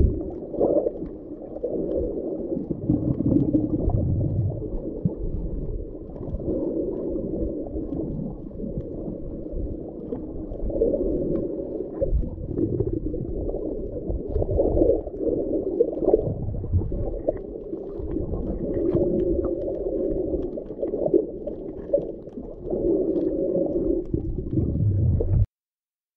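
Muffled underwater gurgling and sloshing of water around a snorkeler, dull and lacking any high sounds as heard through a waterproof camera housing. It cuts off abruptly near the end.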